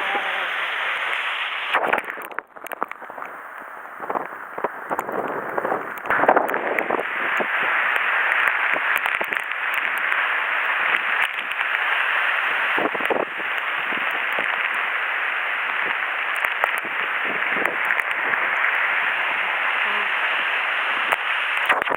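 Typhoon wind and rain buffeting the microphone: a dense, loud hiss with many sharp crackling knocks from gusts. It drops for a moment about two seconds in, then builds again and holds.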